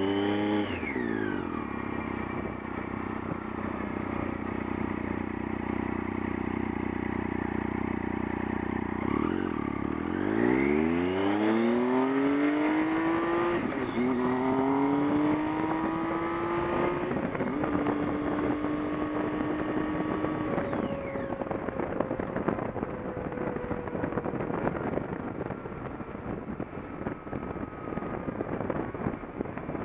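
Vehicle engine slowing, holding steady, then speeding up in three steps with short breaks between them. About two-thirds of the way in the engine tone drops away and a rough buzzing rattle takes over while in neutral; this is the strange noise the owner is trying to trace.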